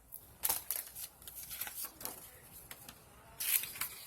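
Paper being handled and shuffled: a run of short rustles and crinkles, louder about half a second in and again near the end.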